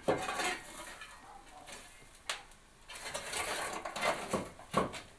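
Scraping and rustling with a few sharp knocks, from a wooden pole being worked among the glowing embers of an open pottery firing.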